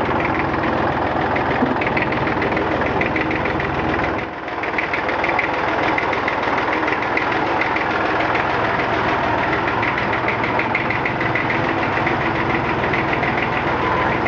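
1959 Fordson Dexta's three-cylinder Perkins diesel running steadily in first low gear, with a regular diesel clatter. The sound dips briefly about four seconds in.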